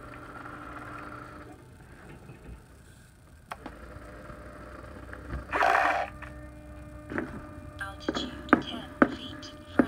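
Retractable landing gear of a Hangar 9 ASW 20 model glider cycling up and down. A small retract motor hums for a second or so as the wheel goes up, then a short loud rushing noise comes about halfway through. The motor hums again as the wheel comes down, followed by several sharp clicks near the end.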